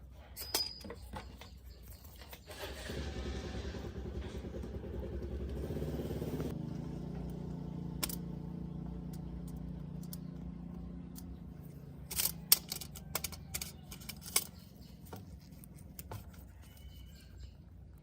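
A small motor runs steadily for several seconds, easing off partway through, followed by a run of sharp clicks and taps.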